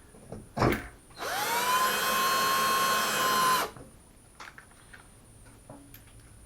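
Electric drill-driver set to low torque, spinning up with a rising whine and running steadily for about two and a half seconds as it drives a screw through a metal shelf track into a wall anchor, then stopping abruptly. A single knock comes just before it, about half a second in.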